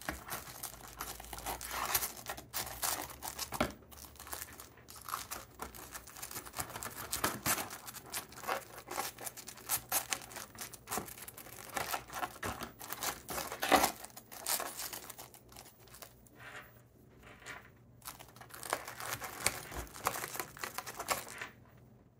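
Serrated knife sawing through the crunchy breaded crust of a Korean rice hot dog, steadied with a fork: irregular crackling and crunching, thinning out over the last few seconds.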